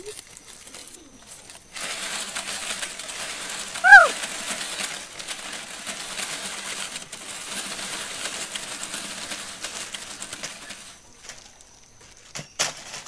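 Home-made sound effects for chimpanzees in the treetops: a steady rustling hiss, like leaves and branches being shaken. About four seconds in comes one short, sharp, scream-like call that rises and falls, and a couple of sharp clicks come near the end.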